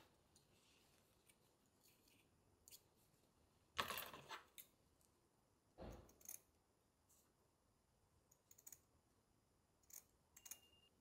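Quiet handling sounds at a workbench: light clicks and taps of tools and tiles, with a louder clatter about four seconds in. In the second half, a few short scissor snips cut through a black fibre mat.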